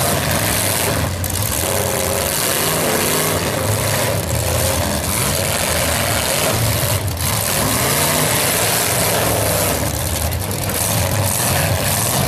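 Several demolition derby cars' engines running loud and hard together, the pitch wavering up and down as the drivers rev and work the throttle while they manoeuvre and push against each other.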